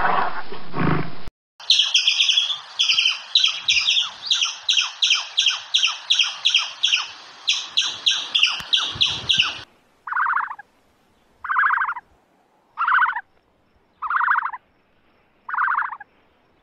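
A brown bear's growl that breaks off about a second in, then a squirrel's rapid, high chirping calls, about three a second, for some eight seconds. After that comes a different, lower call, repeated about every second and a half.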